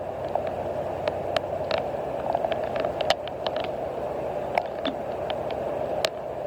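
Small fishing boat on the water: a steady hum and water noise, with irregular small clicks and knocks scattered throughout.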